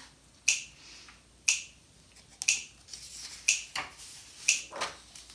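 Finger snaps keeping a steady beat, about one snap a second, with a few softer clicks in between.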